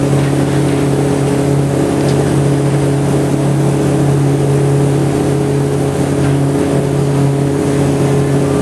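Ferry boat's engine running steadily while under way: a low, even drone.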